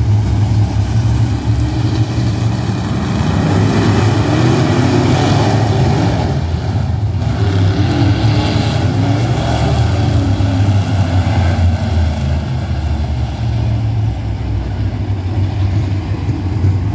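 Pack of dirt-track modified race cars' V8 engines running around the oval, a loud steady engine drone that rises and falls as the cars come by.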